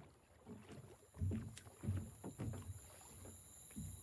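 Water lapping and sloshing against a small boat's hull in soft, irregular splashes.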